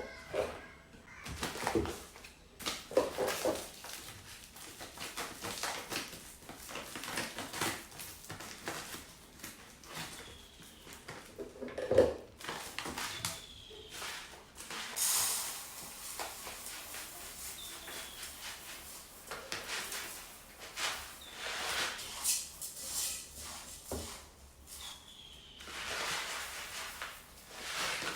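Scattered kitchen handling sounds while rice is readied for boiling: light knocks, clicks and rustles of pots and utensils, irregular and at moderate level.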